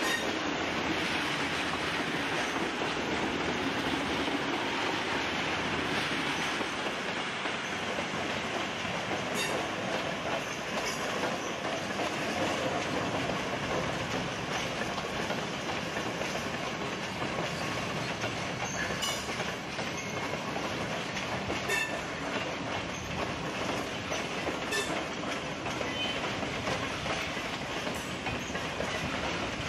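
Netherlands Railways ICM 'Koploper' electric multiple unit rolling past: a steady rumble of wheels on rail, with occasional sharp clicks as the wheels cross rail joints and points.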